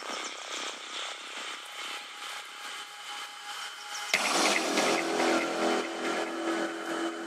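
Opening of a psytrance track: layered electronic noise and synth textures with no kick drum or bass. About four seconds in, a louder layer with a held low tone cuts in suddenly.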